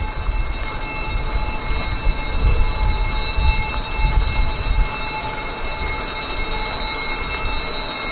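Running bus heard from on board: an uneven low rumble of the moving vehicle, with a steady high-pitched whine of several fixed tones over it.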